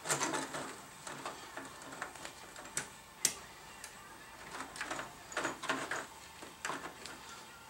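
Irregular light metallic clicks and short scrapes from hand-tool work on the saddle hold-down bolts of a 9x20 bench lathe, with one sharper click a little past three seconds in.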